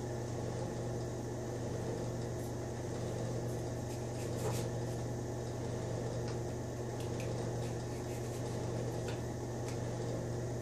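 A steady low machine hum with a few faint, scattered taps of a chef's knife on a plastic cutting board as celery is sliced thin.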